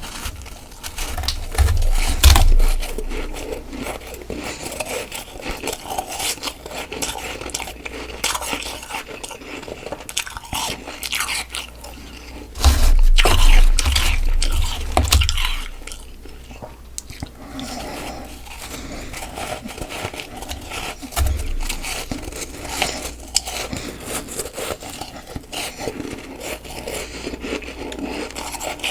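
Close-miked biting and chewing of soft freezer frost: a dense run of crunches, with heavier, louder stretches around two seconds in and from about thirteen to fifteen seconds.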